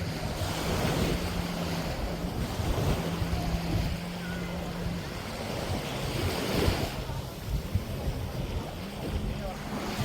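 Small waves washing onto a sandy beach, with wind buffeting the microphone. The surf swells twice, near the start and about two-thirds of the way in. A steady low hum runs through the first half.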